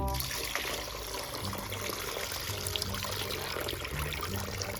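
Water pouring and trickling steadily out of a water-filled plastic mystery bag as it is opened and emptied.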